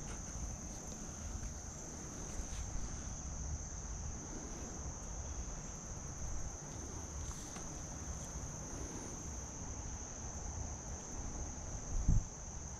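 Steady high-pitched chirring of a cricket chorus, with a low rumble underneath. A single low thump sounds near the end.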